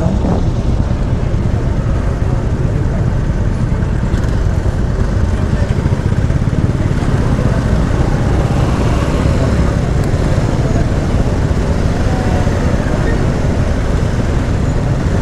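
Steady travelling noise from a road vehicle on the move: a constant low rumble of wind and engine, with traffic around it.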